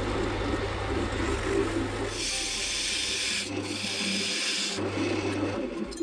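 Abrasive rubbing on wood, like sanding or rasping, over a steady low hum. It comes through most strongly as two hissing strokes of about a second each, starting about two seconds in.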